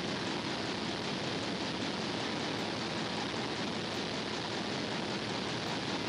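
Steady, even hiss with no separate knocks, clicks or tones.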